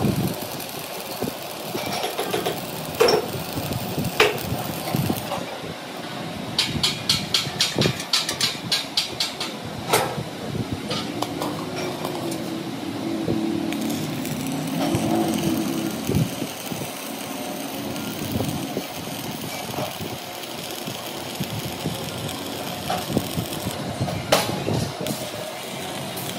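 Metalworking workshop noise: scattered sharp knocks and clanks, a quick run of regular taps lasting about three seconds, and a machine running with a steady hum for a few seconds in the middle.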